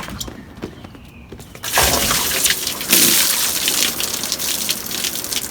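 Water gushing down in a sudden pour about two seconds in, running off a boat's T-top canopy.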